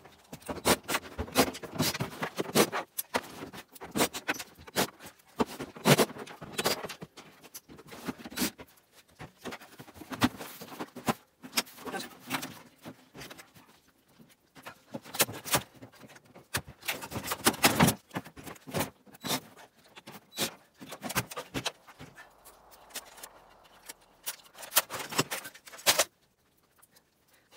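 Irregular clatter of a CRT television being taken apart: many sharp knocks, clicks and rattles as its plastic back housing is worked loose and lifted off the cabinet, with a quieter spell shortly before the end.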